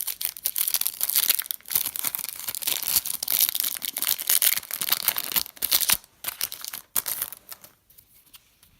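Trading card pack wrapper being torn open and crinkled by hand, a dense crackling that dies away about seven and a half seconds in.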